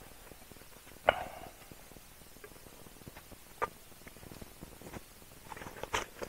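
Scattered knocks and clicks of camp cooking gear being handled, the loudest a sharp clink about a second in with a short ring, and a cluster of small knocks near the end.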